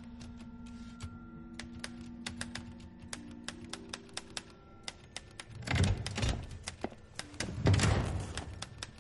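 Typewriter keys clacking irregularly, several strikes a second, over low sustained music. About halfway through, two louder dull noises, each under a second long, come about two seconds apart.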